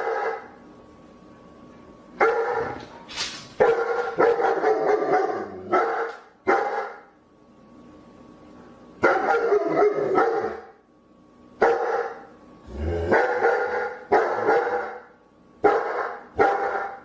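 A dog barking, in single barks and quick runs of several, with a pause of about two seconds near the middle.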